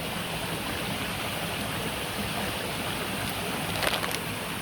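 Mountain stream rushing steadily over rocks, with a few light clicks about four seconds in.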